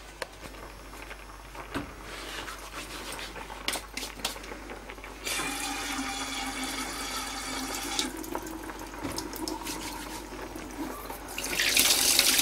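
Kitchen tap running into a steel sink in two spells. First a steady run with a tone in it for about three seconds mid-way, then a louder, hissier gush near the end. Small clicks and knocks of things handled at the counter come in between.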